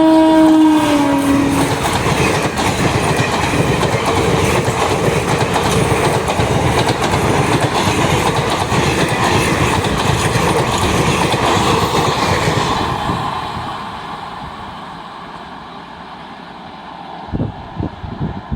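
A train's horn ending about a second in, its pitch sagging slightly, then a train passing close at speed with loud rushing wheel noise and clickety-clack, fading away after about thirteen seconds. A few sharp knocks near the end.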